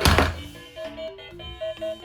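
Background music: a simple tune of plain, steady notes, opened by a loud, short burst of noise that fades within about half a second.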